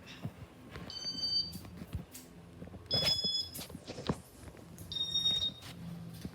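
Three short, high-pitched beeps about two seconds apart, over a faint low hum.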